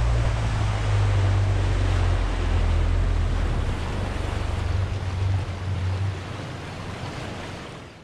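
Rough dam tailwater rushing and churning around a small aluminium boat, with a heavy steady low rumble under it; the rumble eases off about six seconds in and the sound fades near the end.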